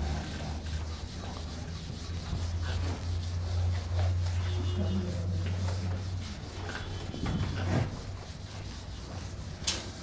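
Whiteboard duster rubbing back and forth across a whiteboard as marker writing is wiped off, a steady scrubbing.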